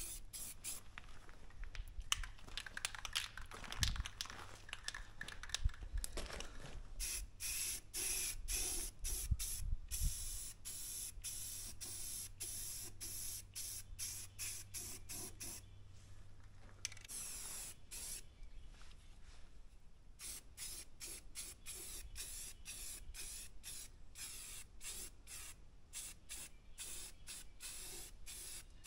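Aerosol spray-paint can hissing in many short bursts with brief gaps between, as it is sprayed onto a steel attachment.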